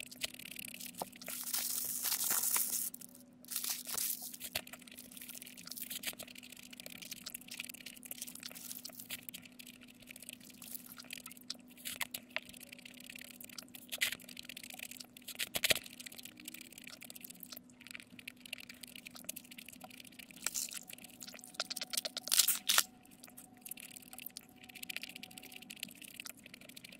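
Close-miked eating sounds: bites, crunching and wet chewing of a Burger King burger and fried chicken nuggets, with crackling rustles of the paper burger wrapper. A faint steady hum lies underneath.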